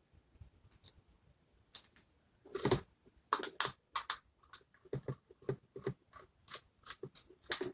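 Plastic power strip surge protector housing being worked open by hand: irregular clicks and cracks of hard plastic, with a longer crunching crack about two and a half seconds in, then a quicker run of clicks.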